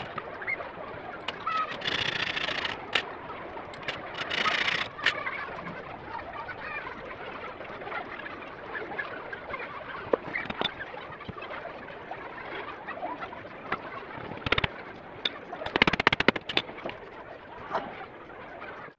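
Wooden frame pieces being handled and fitted together by hand, with scattered knocks and clatter. There are two brief rasping noises in the first few seconds, and a quick rattle of knocks a few seconds before the end.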